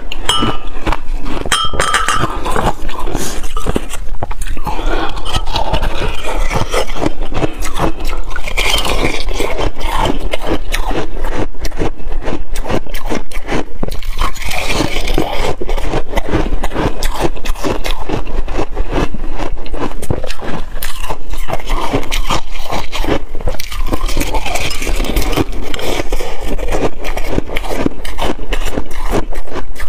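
Shaved ice being bitten and chewed close to the microphone: a dense, continuous run of crisp, crackling crunches.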